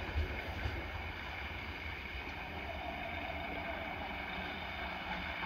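Wind buffeting the microphone over the steady distant rumble of a Tatra M131 railcar's diesel engine.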